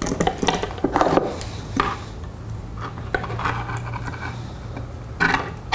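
Armature wire being handled and twisted together by hand: irregular light metallic clinks, scrapes and rattles as the strands knock and rub against each other.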